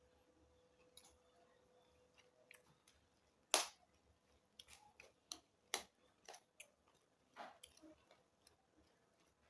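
Close-up eating sounds: a person chewing and crunching food, with irregular crisp crunches and mouth clicks, the loudest about three and a half seconds in.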